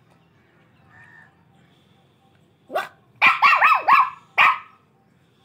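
Puppy barking: a quick run of about six short, high-pitched yaps starting nearly three seconds in.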